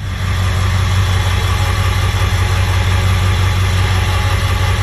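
Ford 7.3 Powerstroke turbo-diesel V8 idling steadily, not yet warmed up after a cold start. The idle is even and solid, a sign that the freshly shimmed injectors have cured its hard cold starting.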